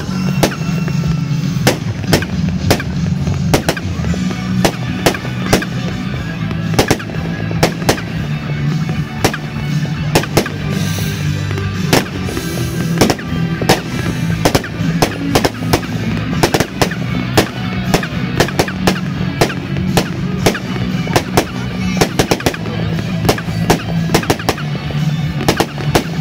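Fireworks going off in a dense, irregular barrage: rockets and shells exploding in sharp bangs, several a second, over a steady low rumble.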